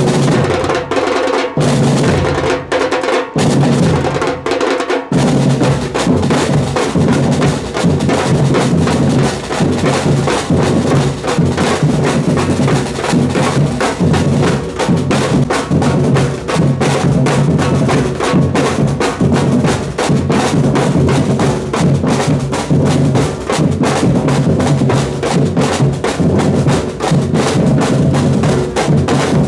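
A samba-reggae drum band playing surdo bass drums and snare drums. There are a few accented hits with short breaks between them, then from about five seconds in the whole band plays a continuous, dense groove.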